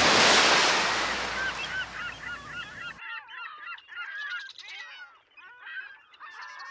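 A loud rushing burst of noise that fades over about three seconds and cuts off suddenly, with a flock of birds calling through it in many short, overlapping calls that carry on alone after the cut.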